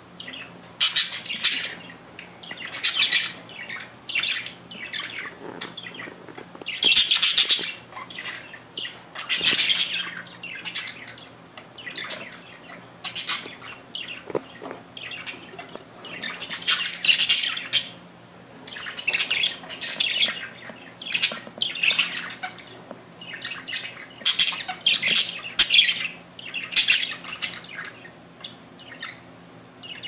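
A group of caged budgerigars chattering and warbling: a busy, irregular stream of chirps and harsher squawky calls that comes in clusters, over a faint low steady hum.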